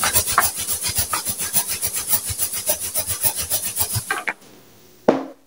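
A rubber balloon rubbed quickly back and forth against cloth, scrubbing strokes that charge it with static electricity, stopping about four seconds in. A short thump follows near the end.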